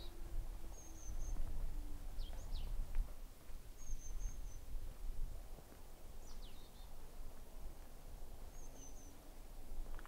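Small birds giving brief high chirps every second or two over a steady low outdoor rumble. A faint low drone slowly falls in pitch in the first two seconds.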